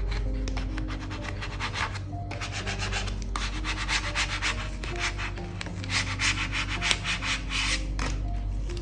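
Quick rubbing strokes, in several bursts, as a vinyl skin is pressed and smoothed down onto a phone's back, with background music underneath.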